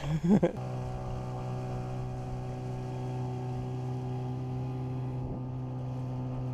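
Small dinghy outboard motor running at a steady speed and even pitch. A brief knock and a voice-like sound come in the first half-second before it settles.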